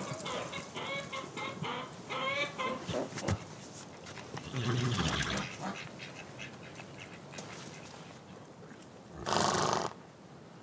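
Farm poultry calling in the background, short calls rising and falling in pitch over the first few seconds, while a horse rolls in the snow and heaves itself to its feet about halfway through. Near the end comes a loud, short rush of breathy noise.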